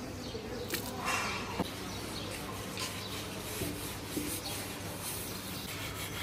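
Water from a plastic bucket splashing onto a large flat iron tawa about a second in, followed by a hand rubbing and scrubbing the wet metal surface in repeated strokes.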